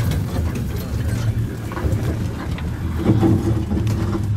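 Open safari vehicle's engine running with a steady low hum as it drives through thorny bush, with branches scraping and crackling against the vehicle throughout.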